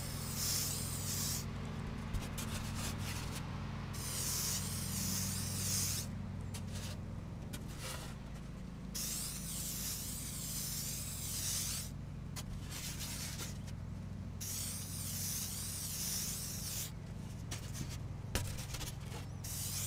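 Aerosol can of Duro spray adhesive hissing in repeated bursts a second or two long with short pauses between, misting light coats onto foam board. A lawnmower engine drones steadily underneath.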